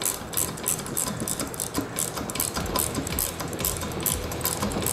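Quarter-inch drive ratchet clicking rapidly, about four or five clicks a second, as small bolts are run down snug but not fully tightened.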